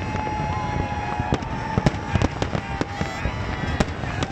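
Aerial fireworks display: shells bursting in irregular bangs, about three a second, with a steady high held tone running beneath.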